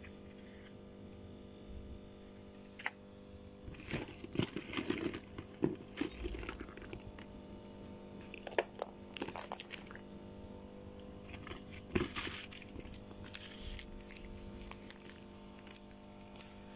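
Small items being handled and moved about in a plastic bag: irregular crinkling and rustling of plastic and packaging, with sharp clicks and knocks, busiest through the middle, over a faint steady hum.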